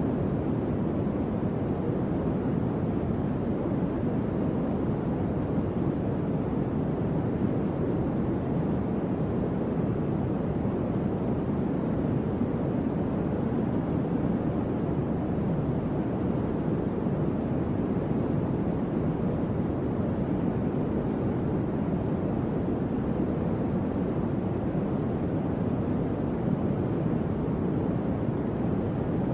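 Electric fan running steadily: an even, low rush of moving air that does not change.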